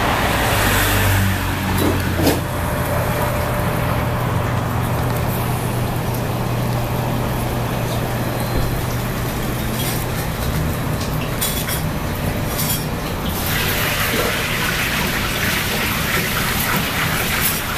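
Steady road traffic noise with a low hum, swelling for a few seconds near the end as vehicles pass, and a few light clinks of dishes and utensils.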